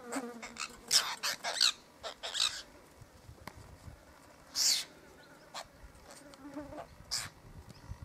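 A flock of apostlebirds giving short, harsh, scratchy calls: a quick run of them at first, then a single loud call a little past the middle and another near the end.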